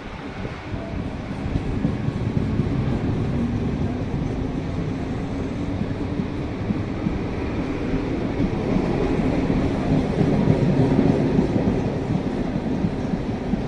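Mumbai suburban electric local train running along the track, a steady rumble of wheels and carriages that grows louder about two-thirds of the way in and then eases slightly.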